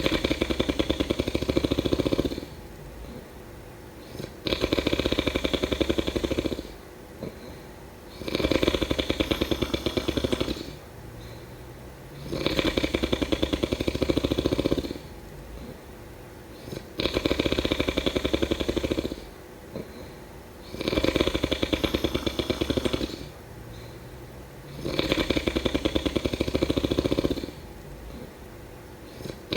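Snoring in a steady rhythm. A rattling snore of a little over two seconds comes about every four seconds, seven times, with quieter breathing between.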